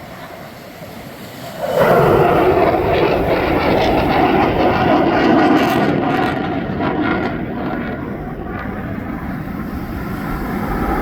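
EA-18G Growler jet engines passing, a loud jet roar that comes in suddenly about two seconds in and stays loud. It eases a little and then builds again near the end.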